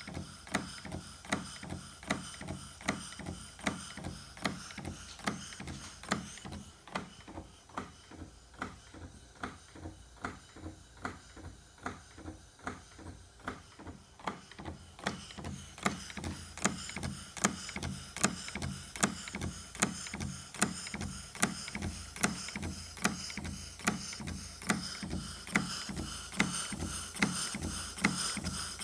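Stuart beam model steam engine running at a slow, steady speed, its moving parts clicking in an even rhythm of about one and a half strokes a second over a steady low hum. The clicking grows louder about halfway through.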